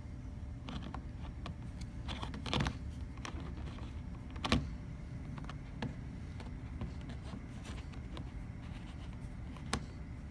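Small clicks and knocks of a Nikon Z7 camera body and its 24-70 lens being handled while the lens is fitted to the Z mount. Two louder knocks come about two and a half and four and a half seconds in, and a sharp click comes near the end, all over a steady low hum.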